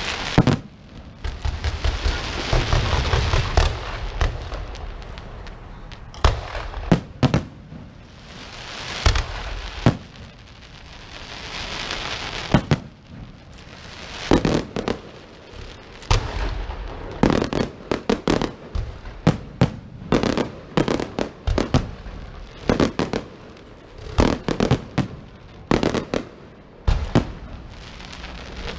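Fireworks going off: swells of rushing hiss alternate with many sharp bangs and cracks, and the bangs come thick and fast through the second half.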